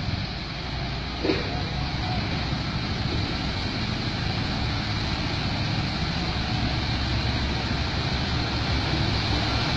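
Heavy truck engine running steadily, growing a little louder as the truck creeps closer, with a short click about a second in.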